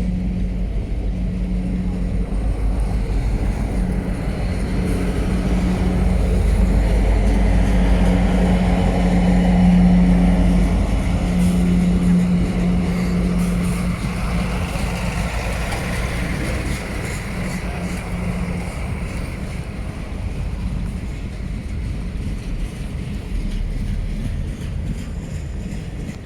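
GE diesel-electric locomotive in dynamic braking: a steady hum with the rushing whine of the brake-grid cooling blowers. Its traction motors are retarding the train and the heat is blown off the resistor grids. The sound swells to its loudest about ten seconds in, then slowly fades, the hum dropping out near the end.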